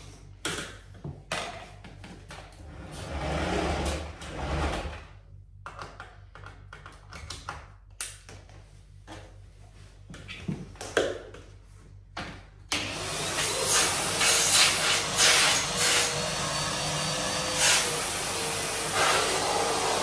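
Scattered clicks, knocks and rustles of handling, then a Henry cylinder vacuum cleaner switched on about two-thirds of the way through. It runs steadily with a loud rush and a steady whine.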